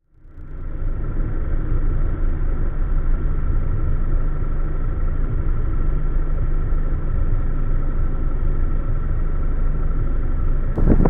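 A car's engine and tyre noise as it drives slowly, a steady low rumble, picked up by a dashcam's microphone inside the cabin.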